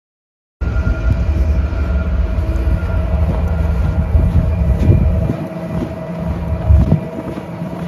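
A vehicle running: a heavy low rumble with several steady whining tones over it, starting abruptly about half a second in.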